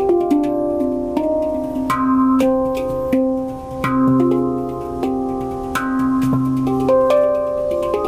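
Handpan played with the fingers in an improvised piece: notes struck one after another ring on and overlap, with a low note sounding beneath them.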